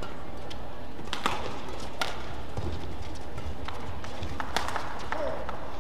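Badminton rally: several sharp racket hits on the shuttlecock at uneven spacing, the clearest about a second in, at two seconds and near the end, with players' footfalls on the court mat.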